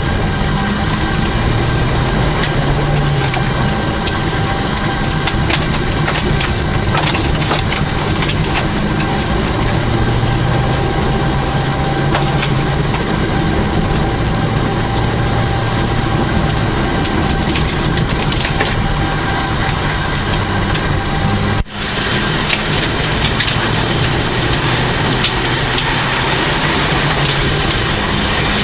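Toyota Celica GT4's turbocharged four-cylinder engine driven hard on a rally stage, its pitch rising and falling with throttle and gear changes. Under it runs a constant noise of gravel crunching and stones hitting the car. The sound drops out for a moment once, about three-quarters of the way through.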